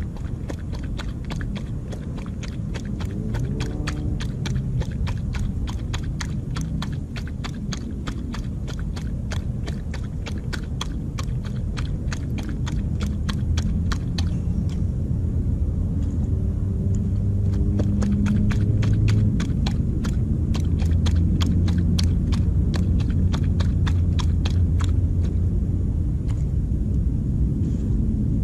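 Coyote chewing and crunching food from a plastic tray right at the microphone: a quick run of crisp clicks, several a second, that thins out about halfway through and stops shortly before the end. Under it is a steady low rumble.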